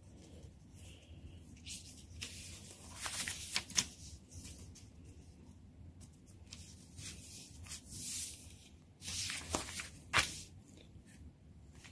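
Paper instruction booklet handled and its pages turned, rustling and flapping in several short bursts, the loudest about a third of the way in and near the end.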